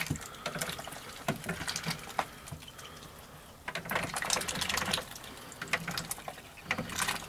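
Ducks dabbling with their bills in water: quick, irregular wet slurping and splashing clicks, busiest about four seconds in and again near the end.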